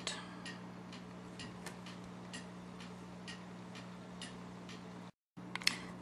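Faint computer mouse clicks, roughly two a second and not quite evenly spaced, over a steady low electrical hum. The sound cuts out to silence for a moment about five seconds in.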